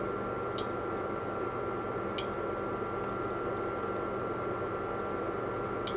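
Steady electrical hum and hiss with several constant tones, and three faint short clicks spread through.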